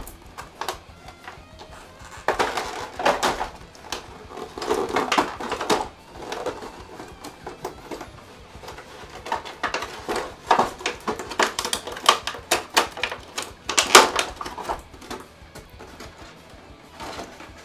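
Packaging being handled: irregular rustling and sharp clicks as the action figure and its parts are taken out of the box, over quiet background music.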